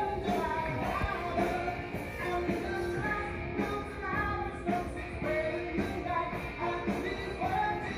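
Background rock music with a singing voice.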